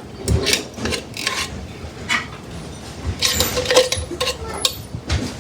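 A utensil stirring food in a cooking pot, with irregular clinks and scrapes against the pot.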